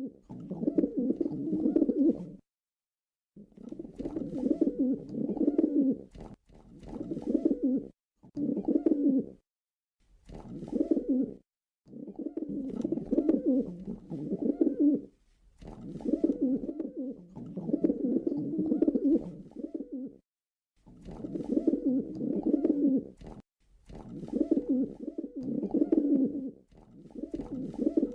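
Domestic pigeon cooing over and over in low, rolling phrases, each lasting one to four seconds with short pauses between them.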